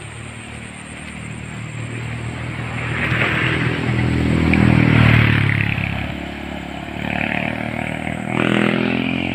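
A motorcycle engine passing close by, growing louder to a peak about five seconds in, then fading away. A second motorcycle engine comes in near the end.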